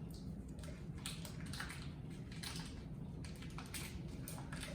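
Butter melting in hot avocado oil in a frying pan, sizzling with irregular small crackles and pops.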